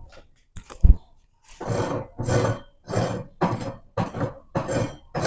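A thump about a second in, then a hand sweeping across a plywood saw table in regular back-and-forth strokes, about two a second, rubbing over the wood.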